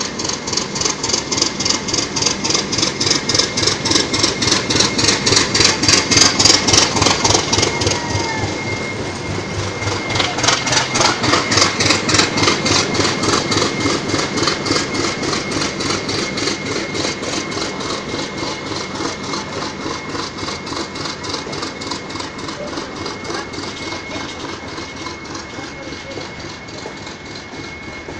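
TEM2 diesel-electric shunting locomotive passing close by with a container train. The engine runs with a fast rhythmic beat and is loudest as the locomotive comes past about six seconds in, then the wagons roll by and the sound fades. A thin steady high whine sets in about nine seconds in.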